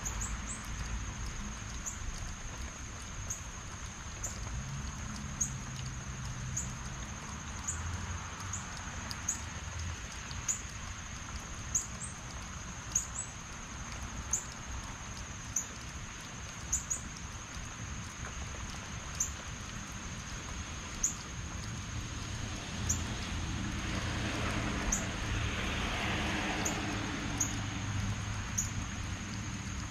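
Steady heavy rain falling on a lawn, hedges and trees. Over it, a thin, very high steady tone with short sharp chirps about once a second, and a rushing swell that builds and fades about three-quarters of the way through.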